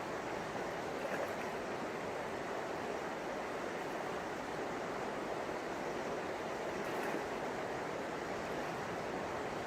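The River Tees rushing steadily over a shallow, fast-flowing stretch.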